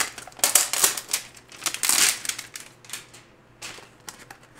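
Cardboard trading-card box being handled and its taped end flap pried open: a run of sharp crackles and clicks of cardboard and tape, loudest about two seconds in, thinning out afterwards.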